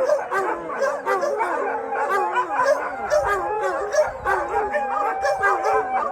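A large pack of dogs howling together, many overlapping wavering howls with yips and barks mixed in.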